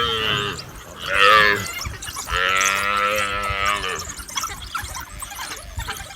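Buffalo bawling in distress during a wild dog attack. One call trails off at the start, a short call comes about a second in, and a longer, wavering call runs from about two to four seconds in.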